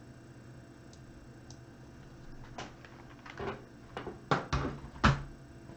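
A steady low hum, then a handful of short knocks and rustles in the second half, the two loudest about a second apart near the end.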